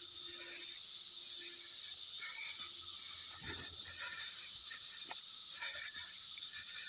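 Dense chorus of cicadas: a loud, steady, high-pitched drone that does not let up. Fainter short calls come and go beneath it.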